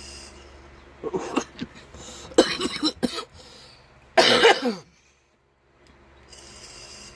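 A woman coughing from vaping, in three fits of short hacking coughs about a second apart in the middle, with some throat clearing. A soft hiss comes in near the end.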